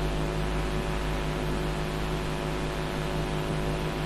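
Steady background hum and hiss with several constant tones and no distinct events.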